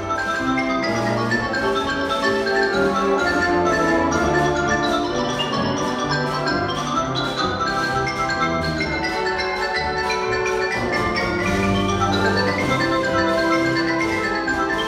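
Xylophone playing a fast ragtime novelty solo, quick runs of short bright notes, over a concert band holding longer notes beneath it.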